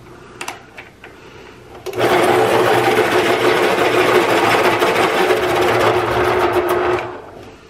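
X-Acto Teacher Pro electric pencil sharpener sharpening a wooden graphite pencil. A few light clicks as the pencil goes into the aperture, then the motor starts about two seconds in and runs steadily, whirring and grinding, for about five seconds. It cuts off near the end as it stops on its own once the point is fully sharpened.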